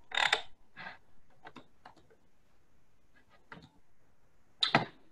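Scattered clicks and taps from a computer keyboard and mouse, irregularly spaced, with louder short bursts at the start and near the end.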